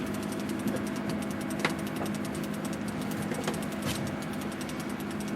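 Boat engine idling with a steady, even hum, and a couple of faint sharp clicks.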